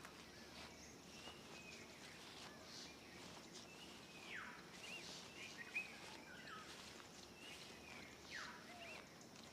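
Faint outdoor ambience: scattered short bird chirps and whistles over a low hiss.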